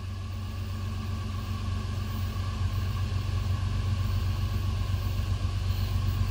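Diesel locomotives approaching down the track: a steady low engine rumble that slowly grows louder.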